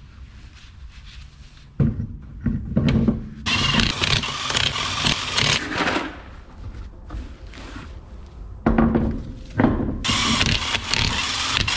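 Cordless DeWalt impact wrench running in several bursts of a few seconds each, each with a steady hum, spinning the lug nuts onto a front wheel.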